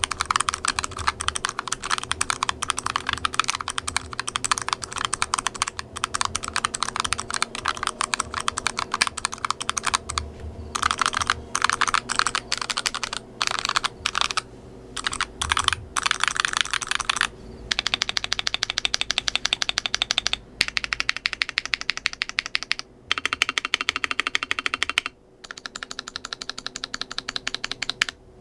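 Typing on an Akko ACR59 compact mechanical keyboard with PBT keycaps, modded with a lubed foam sponge, tape mod and silicone dampeners. The keys click in a fast, continuous stream, with a few brief pauses in the middle and later on.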